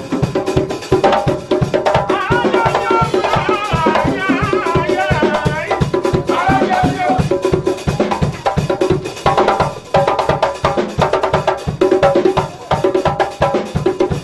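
Live church band music: hand drums and a drum kit keep a fast, steady percussion beat under sustained keyboard chords.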